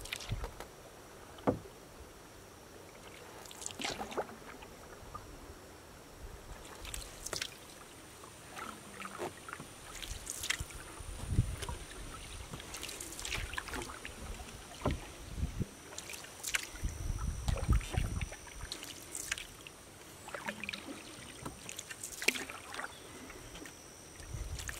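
A canoe being paddled: a short splash and drip of water off the paddle blade about every three seconds, stroke after stroke.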